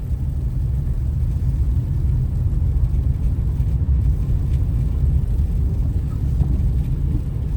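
Steady low road and engine rumble heard from inside a car's cabin while it is driven slowly on a snowy freeway.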